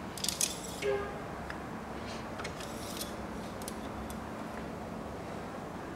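An engine oil dipstick being wiped with a rag and slid back into its guide tube: a burst of rustling and scraping in the first second, then scattered light clicks over a faint steady hum.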